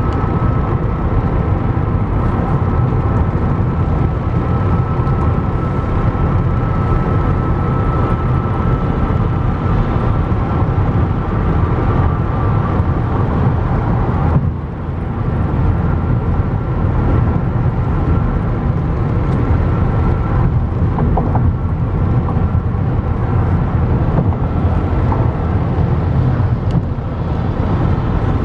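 Steady road noise inside a car cabin at highway speed: a low rumble of tyres and engine with a faint steady whine above it. The noise dips briefly about halfway through.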